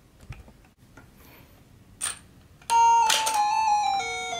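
Toy claw machine's built-in electronic jingle starting about two-thirds of the way in: a bright beeping tune of held, stepped notes, with a short rattle as it begins. Before it come a few faint clicks and a sharper click about two seconds in.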